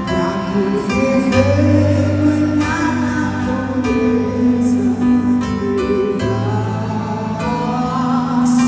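Live gospel song: a singer's voice over guitar and a sustained bass accompaniment.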